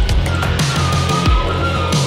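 Loud background music with a heavy, driving beat, a low drum hit about every two-thirds of a second. A held high note sounds through the middle.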